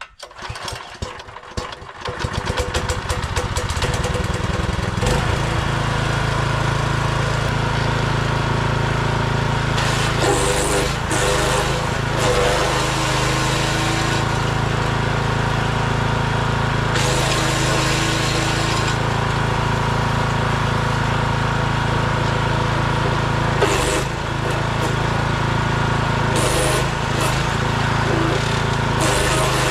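Small 6 hp petrol engine of a Forest Master FM6DD compact wood chipper starting, picking up speed over the first few seconds and then running steadily at full throttle, its top RPM turned down by the owner. Several short bursts of higher-pitched noise break in, with the engine briefly labouring about two-thirds through, as branches are fed into the chipper.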